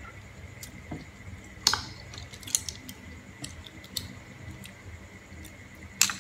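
Boiled green mussel shells clicking and cracking as they are pried open and handled by hand: a few sharp clicks, the loudest about two seconds in and near the end, with lighter ticks between.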